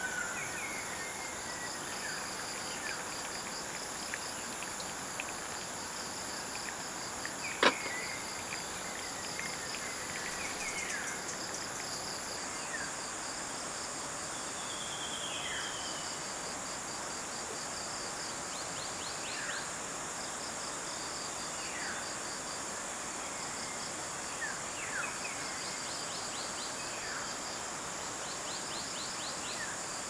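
Insects trilling steadily at a high pitch, one of their tones dropping out about twelve seconds in, with scattered short falling bird chirps over a steady background hiss. A single sharp click stands out about eight seconds in.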